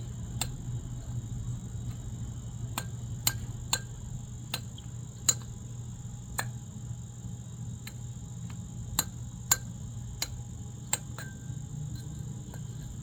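Wind chime being knocked about by a cockatoo: short, irregular clinks and taps, about one a second, some louder than others.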